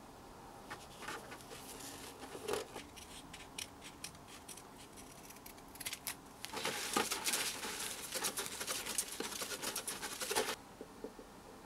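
Light clicks and rustles as decal strips are handled and pressed onto a plastic RC truck body, then a few seconds of steady, scratchy rubbing as a tissue is worked over the body to smooth the decal down, stopping suddenly near the end.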